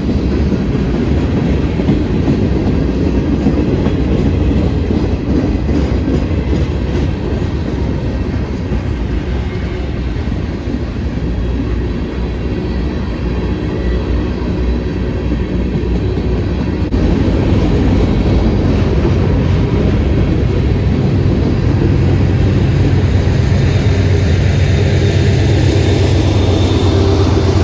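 Freight train rolling past at trackside, its wheels clacking over the rail joints in a steady rumble. About seventeen seconds in the sound steps up abruptly and a steady low drone joins it.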